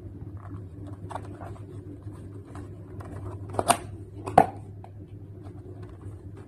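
A small cardboard phone box being handled and opened by hand: light scraping and tapping of cardboard, with two sharper knocks a little under a second apart near the middle, over a steady low hum.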